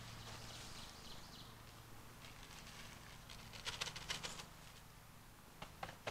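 Mushroom spawn shaken from a bag and pattering down onto wood-chip mulch: a quick spurt of rustling ticks about two-thirds of the way in, and a few more near the end.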